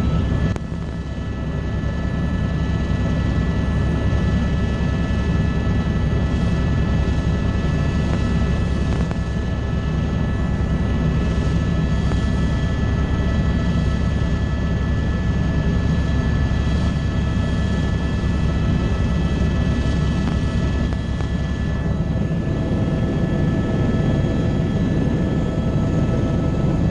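Helicopter in flight heard from inside the cabin: a steady din, with a heavy low rumble under a constant whine of several high tones.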